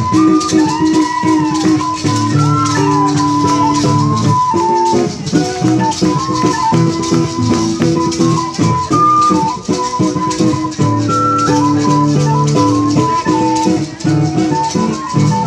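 Instrumental break of a small live acoustic band: a flute plays the melody, with little slides between notes, over strummed acoustic guitar and steadily shaken maracas.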